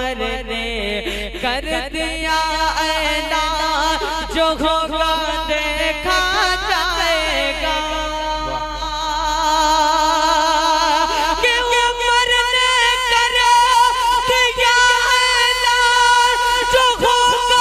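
A man singing a naat into a stage microphone in a melodious tarannum style, drawing out long, wavering notes. About eleven seconds in, the line climbs to a higher pitch and holds it.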